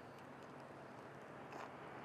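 Faint footsteps on a snow-covered pavement, one step standing out a little past halfway, over a steady hum of traffic on the nearby road.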